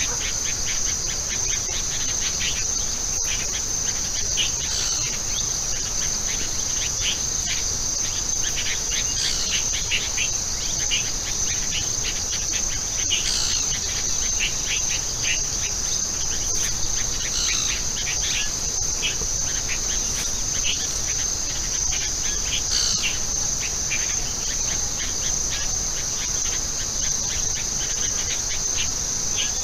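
Steady high-pitched drone of an insect chorus, with many short chirps beneath it and a brief falling call about every four to five seconds.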